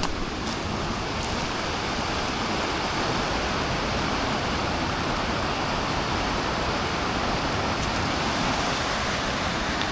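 Steady rushing of a mountain river flowing over stones, an even unbroken roar of water.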